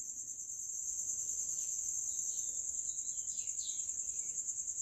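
A cricket trilling steadily: a quiet, high-pitched, fast-pulsing note. About halfway through come a few faint squeaks of a marker writing on a whiteboard.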